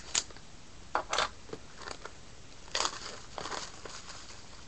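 Packaging of a trading-card box crinkling and rustling as it is opened by hand, in several short crackling bursts.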